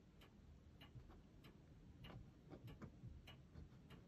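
Near silence: room tone with faint, scattered small ticks.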